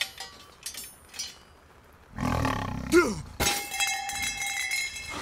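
Jaguar snarling, about two seconds in, with a roar that slides down in pitch. It is followed by a ringing metallic sound that lasts to the end.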